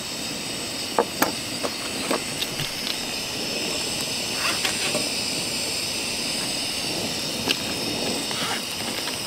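Butter sizzling in a pan on a camp stove: a steady hiss with a few sharp ticks and pops, mostly in the first two seconds and once more near the end.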